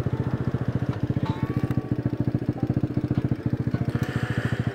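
Cafe racer motorcycle engine running at low revs, a steady, rapid, even thump of about ten beats a second.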